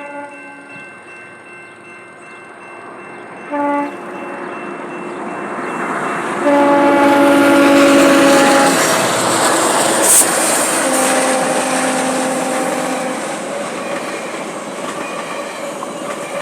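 Train horn sounding a series of blasts, a short one about three and a half seconds in and then two long ones, over the growing rush and rumble of a passing train.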